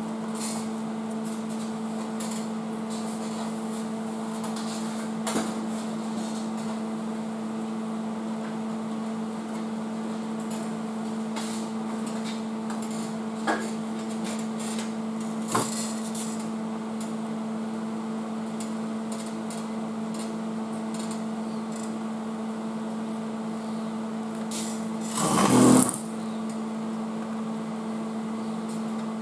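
A steady machine hum runs throughout, with a few sharp clicks and, near the end, one loud noisy burst lasting about a second.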